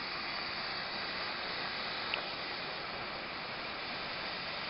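Gas torch burning with a steady hiss as it heats a 2/0 copper cable's ring terminal filled with solder. A faint tick about two seconds in.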